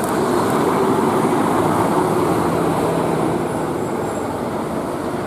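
A large bus running past with steady engine and road noise. It grows louder into the first second and eases off slightly near the end.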